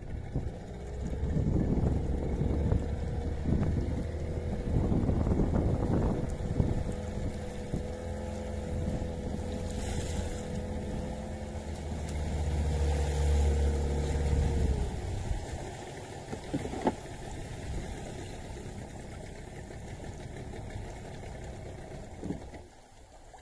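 Small fishing boat's motor running steadily while trolling, then cutting out about two-thirds of the way through, leaving wind and water noise.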